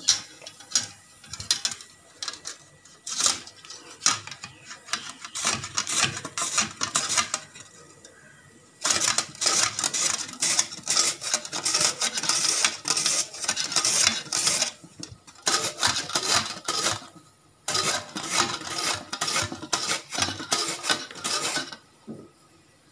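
A raw potato is sliced on the slicing blade of a stainless-steel box grater, with repeated rasping strokes against the metal. The strokes are spaced out at first, then come quickly and almost without a break from a little before halfway through, with a couple of short pauses, and stop just before the end.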